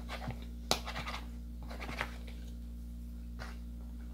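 A metal fork scraping and clicking against a plastic bowl as noodles are twirled and lifted: a few scattered short scrapes, the sharpest just under a second in, over a steady low hum.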